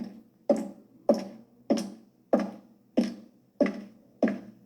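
High-heeled shoes walking at a steady pace: sharp heel clicks about every 0.6 s, each with a short echoing tail.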